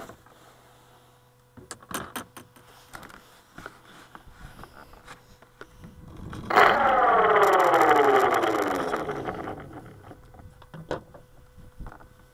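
Go Discover FPV plane's upgraded electric motor and propeller: the motor surges to a loud whine about six and a half seconds in, then spins down with falling pitch over about three seconds, as in a pre-flight throttle check. Handling clicks and knocks come earlier.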